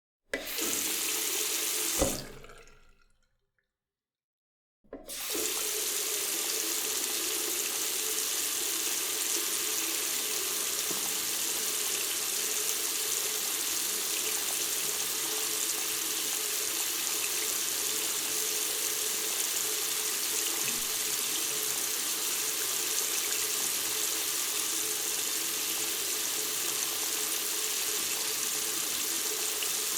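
Bathroom water tap running in a steady stream. About two seconds in there is a knock, and the flow dies away into a couple of seconds of silence. Then the water starts again and runs steadily.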